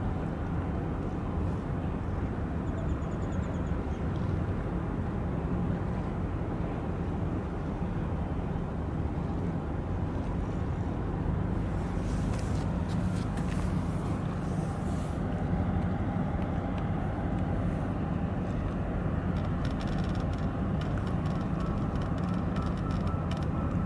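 Steady low rumble of a ship or boat diesel engine heard across the harbour water, with a constant noise of wind and water under it. A run of short crackling clicks comes about halfway through and again near the end.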